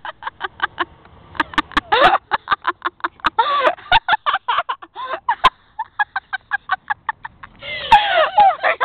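A person making a mouth sound effect: a fast run of tongue clicks, several a second, broken by a few short vocal calls that bend up and down in pitch. The loudest of these calls comes near the end.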